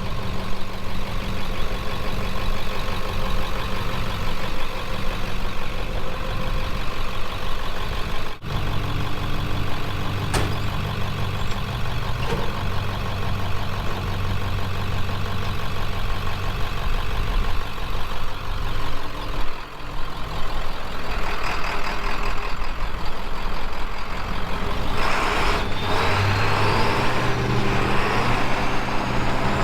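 Heavy diesel engine of a truck or piece of equipment running hard under load in deep mud. Its note changes about 9 s and 21 s in, and from about 21 s it gets louder with a rougher, hissing edge.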